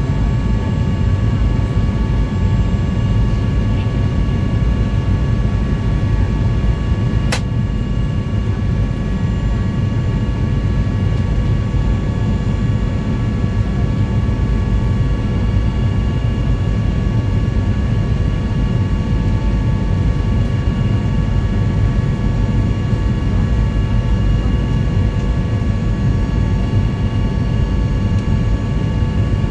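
Steady engine and airflow noise inside an airliner cabin on the descent to land: a deep even rumble with several steady whining tones over it. A single sharp click sounds about seven seconds in.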